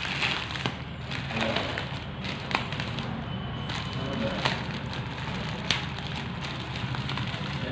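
Plastic courier mailer bag crinkling and rustling as hands pull and tear it open, with a few sharp crackles.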